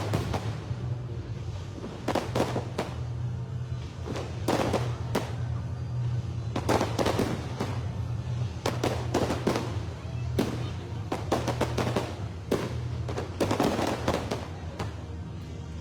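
Aerial fireworks going off in a rapid series of booms and crackling bursts, several clusters every couple of seconds, over a steady low hum.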